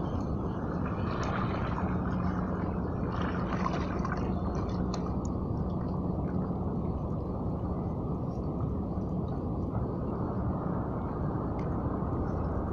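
Water gurgling and splashing at the shore, with a few short splashes in the first five seconds, over a steady low rumble and hum.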